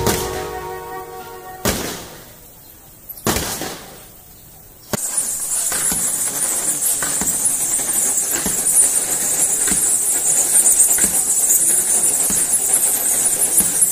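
Music fading out over the first few seconds, broken by a few sharp clicks. About five seconds in, a dense, high-pitched chittering of a large swarm of bats starts suddenly and keeps on.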